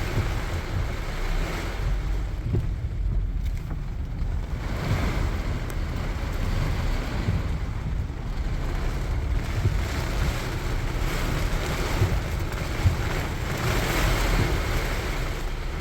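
Heavy rain pouring on a moving car, with a steady low rumble of tyres on the wet road. The rain swells louder twice.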